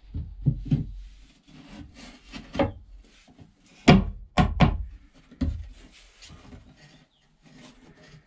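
Irregular knocks and clatters of wooden or board pieces being handled and set down, with some rubbing between them. The loudest is a cluster of knocks about halfway through.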